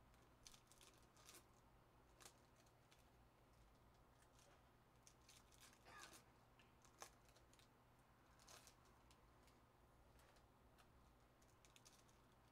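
Faint rustling of foil trading-card pack wrappers from 2024 Donruss Baseball, handled and opened, with scattered light clicks of cards; a few crinkles stand out about six and eight and a half seconds in.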